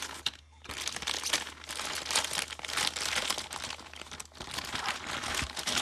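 Packaging crinkling and rustling with sharp crackles as it is handled and torn open by hand, with a brief pause about half a second in.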